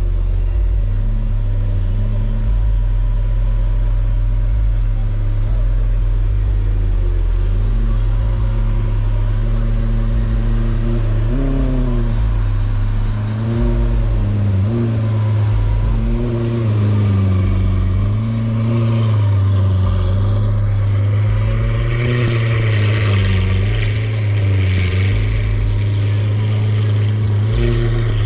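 Lamborghini Aventador's V12 engine idling through its exhaust with a deep, steady note. From about ten seconds in, the pitch swells and falls back again and again in light throttle blips.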